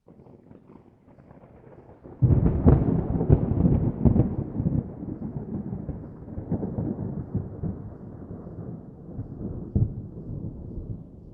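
Thunder: a faint low rumble, then a sudden loud thunderclap about two seconds in with several crackling cracks, trailing into a long low rumble that slowly fades, with one more short sharp crack near the end.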